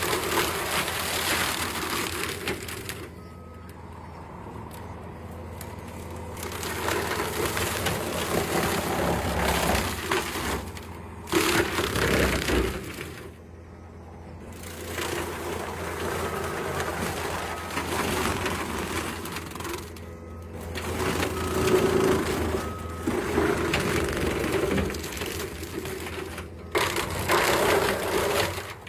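Compact track loader's engine running under load while its boom-mounted tree saw chews through cedar trunks and brush. The noise drops away suddenly several times.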